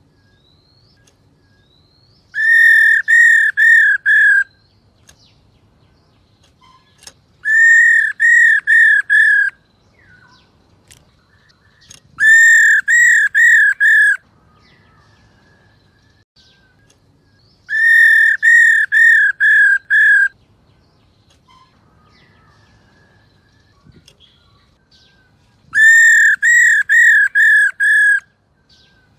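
Black-throated laughingthrush calling: five bouts of four to six repeated whistled notes on one pitch, each bout about two seconds long, with a few seconds' pause between bouts.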